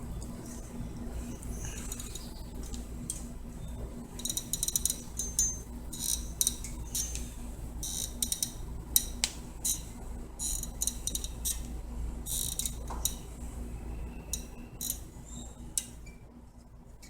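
Irregular light metallic clinks and taps, some ringing briefly, of steel bar and smithing tools being worked, over a steady low hum.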